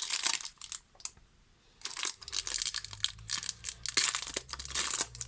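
A plastic trading-card wrapper being torn open and crinkled in quick, rustling bursts, with a pause of about a second near the start.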